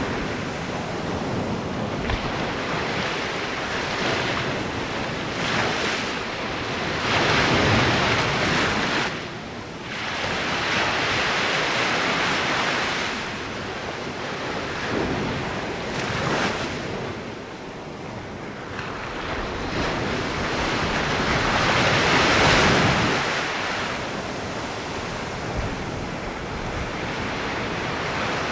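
Light ocean waves washing onto the shore: a steady hiss of surf that swells and ebbs every few seconds, with the biggest swells about eight seconds in and again a little past twenty seconds.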